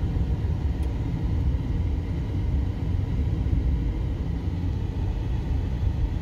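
Steady low rumble of road and wind noise from a car driving down a mountain road, heard from inside the car.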